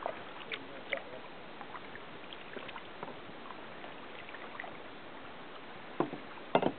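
Quiet water sounds around a kayak on calm sea: faint drips and small lapping over a steady low hiss. Then the kayak paddle strokes the water, with two short, louder splashes or knocks about six seconds in.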